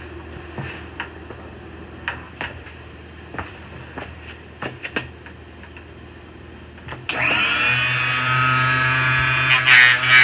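A few light handling clicks, then about seven seconds in a powered brass case trimmer's small electric motor spins up and runs steadily with a steady whine, getting louder near the end.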